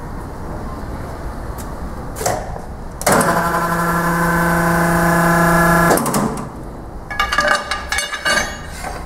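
Amada horizontal automatic band saw running: a loud, steady hum starts about three seconds in and stops suddenly about three seconds later, followed by a short burst of irregular metallic clattering.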